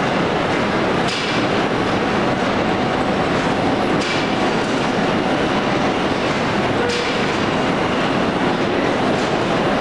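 Vegetable sorting line machinery running: a loud, steady, dense rattling clatter, with a sharp clank about every three seconds.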